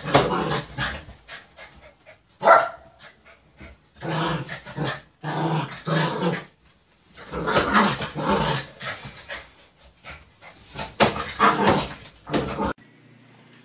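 Small curly-coated dog barking and growling in short, irregular bursts, guarding a pregnant woman against a man reaching for her. The sound cuts off suddenly near the end.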